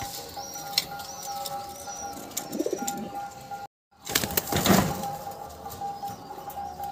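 Caged Shirazi (Lahore) fancy pigeons cooing low, then a loud flurry of wing flapping just after a brief dropout about four seconds in. High, arched chirps sound in the first couple of seconds.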